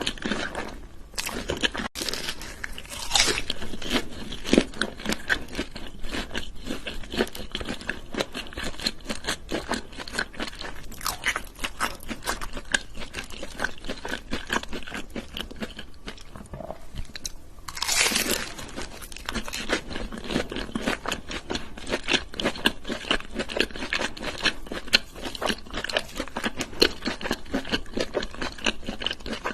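Close-miked eating: crunchy fried chicken and cheese puffs bitten and chewed, with dense rapid crackling crunches and a few louder bites.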